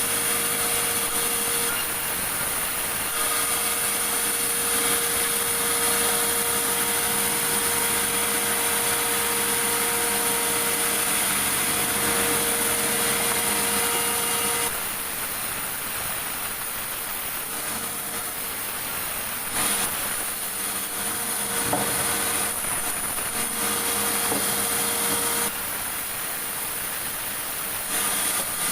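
Sawmill saw cutting large meranti logs: a steady machine hum with the rasping noise of the blade in the wood, its sound changing abruptly several times.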